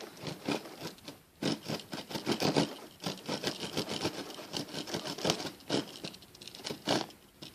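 The small saw blade of a pocket knife scraping back and forth in short, repeated strokes, a few a second, with a brief pause about a second in.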